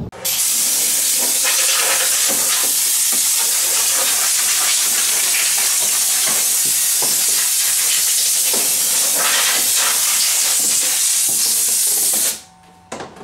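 Compressed-air blow gun hissing steadily as it blows dust off an air-filter box. It cuts off suddenly near the end.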